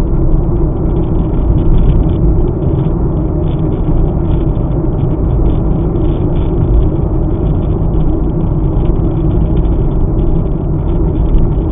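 Car driving along a paved road, heard from inside the cabin: a steady low rumble of engine and tyre noise.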